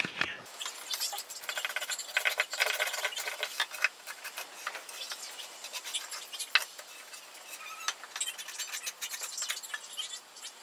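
A hand tool scraping and shaving along the edge of a pallet-wood paddle, in runs of quick rasping strokes with brief pauses between them.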